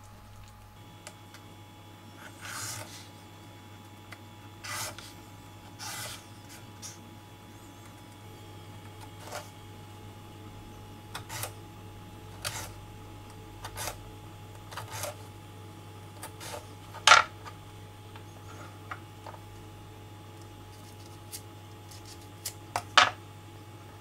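Handling noise from fruit carving: short taps and knocks of a knife and cut watermelon pieces on a wooden cutting board, a dozen or so scattered through, with a sharper knock a little past two-thirds through and a quick cluster near the end. A faint low hum runs underneath.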